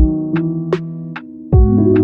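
Electronic background music: sustained synthesizer chords over a steady beat and a deep, sliding bass. The bass and beat drop out briefly and come back in about one and a half seconds in.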